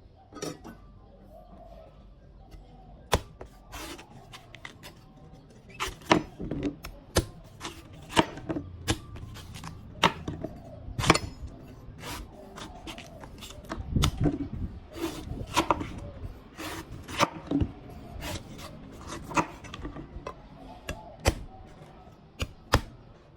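A blade chopping into a coconut: irregular sharp strikes, some landing as heavier thuds.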